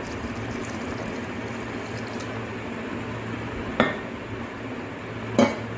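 Milk pouring from a plastic jug into a mixer-grinder jar of mango pieces and jaggery. A knock comes a little under four seconds in as the jug is set down on the counter, and a sharper, louder knock follows about a second and a half later.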